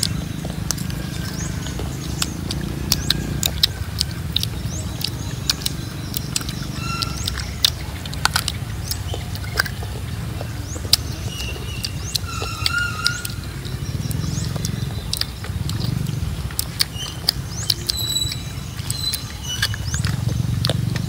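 Crisp bites and chewing of firm young fruit, heard as many short crunches and clicks over a steady low rumble. Now and then there are short high chirps.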